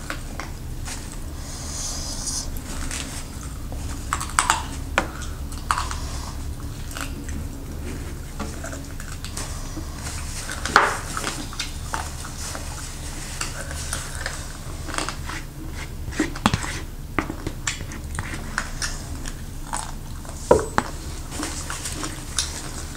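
Cutlery and dishes clinking and tapping during a meal, in scattered clicks with chewing between them, over a steady low hum.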